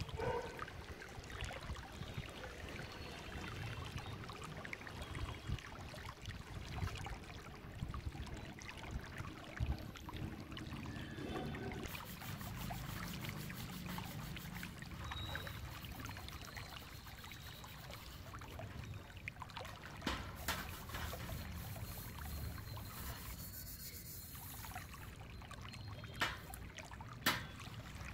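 Stainless steel utensils being scrubbed by hand in a large steel basin, with water trickling and rubbing sounds and two sharp clinks near the end.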